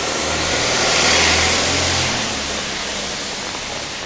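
A motor vehicle drives past on a wet road: engine and tyre hiss swell to a peak about a second in, then fade away.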